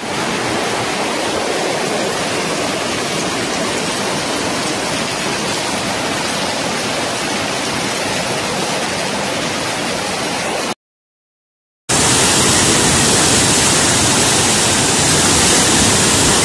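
Muddy floodwater rushing down a street in a steady, loud torrent; it cuts off about eleven seconds in, and after a second of silence a waterfall in flood takes over with a steady, hissier rush of water.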